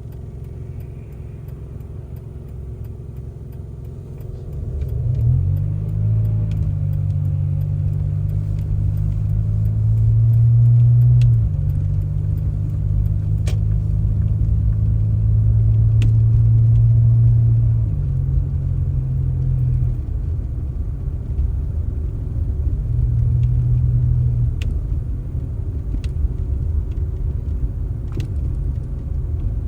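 A large engine running with a deep rumble. It picks up about five seconds in and its pitch and load shift repeatedly as it works, loudest in the middle.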